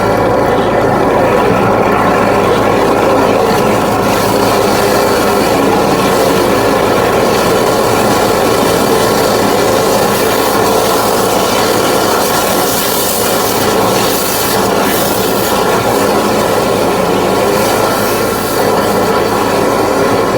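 High-pressure drain-cleaning jetter running steadily, its engine and pump droning without a break while water is jetted through the drain pipe.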